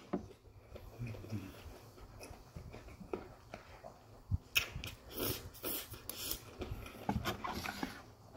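Close-up eating sounds of a person chewing a mouthful of noodle stew, then a series of short wet slurps from a spoon of broth and noodles starting about four and a half seconds in.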